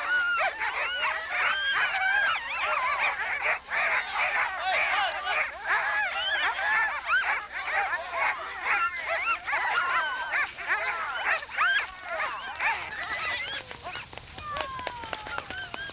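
A crowd of sled dogs barking and yelping all at once in a dense, excited chorus that thins out after about twelve seconds, ending with a few scattered yips and a falling whine.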